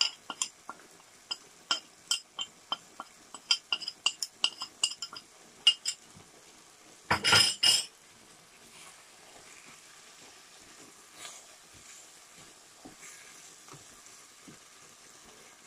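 A quick run of sharp clinks as a small spice bowl is tipped and tapped over a frying pan, then a louder clatter about seven seconds in. After that there is a faint sizzle while the chicken mince is stirred with a wooden spatula.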